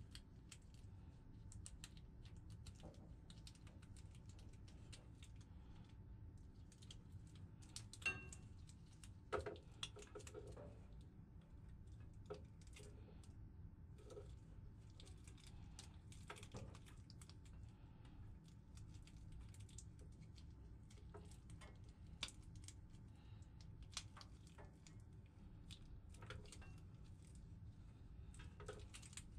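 Faint scattered clicks and rustles of a red PowerTwist Plus link V-belt being twisted together link by link in gloved hands, with two louder snaps about eight seconds in and again a second and a half later, over a low steady hum.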